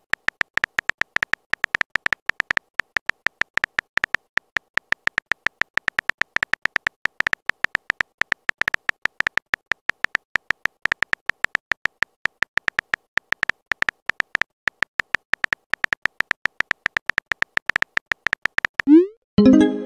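Texting-app keyboard sound effect: a rapid, continuous run of short, high-pitched ticks, one per typed character. Near the end, a short rising swoop and a pop-like tone sound as the message is sent.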